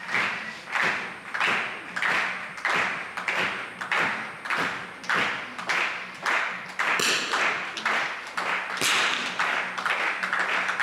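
Spectators clapping in unison, a steady beat of about three claps every two seconds. In the last few seconds it swells into more continuous applause and cheering.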